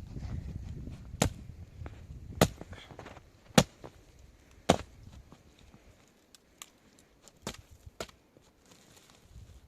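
Wood being chopped: four heavy blows about a second apart, then a few lighter knocks.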